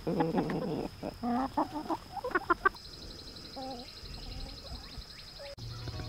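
A flock of chickens clucking, with several calls close together in the first half, then fainter, sparser calls.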